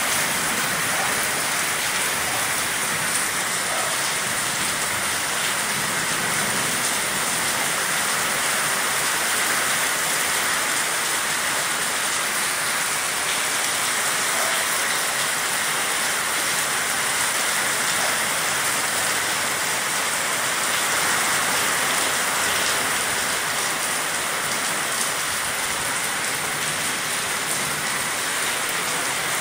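Heavy downpour: torrential rain falling steadily on the street and buildings, a dense, even hiss.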